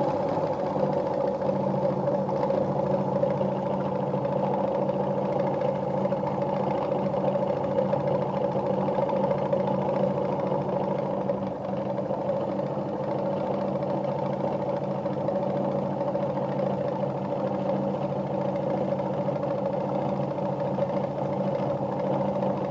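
Jones electric sewing machine running steadily at an even speed, sewing one of its built-in decorative stitches.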